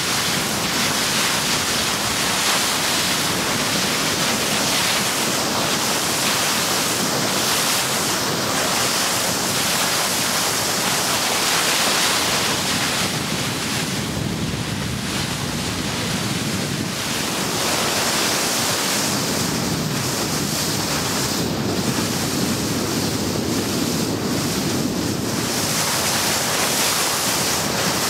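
Steady rush of wind on the microphone mixed with water rushing along the hull of a wooden runabout under way on the lake.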